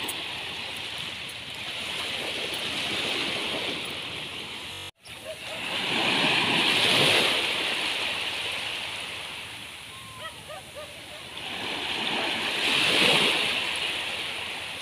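Ocean waves breaking and washing up the beach, swelling and ebbing, with two big swells about seven and thirteen seconds in. The sound cuts out briefly about five seconds in.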